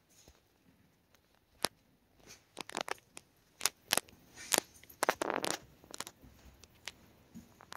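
A run of irregular sharp clicks and short crackles. They start about a second and a half in and grow thicker past the middle, with a dense cluster about two thirds of the way through.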